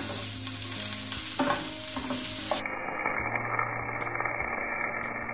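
Cut okra sizzling as it fries in a nonstick pan on high flame, with a wooden spatula stirring and scraping the pan. About two and a half seconds in, the sizzle cuts off abruptly to a duller, quieter sound.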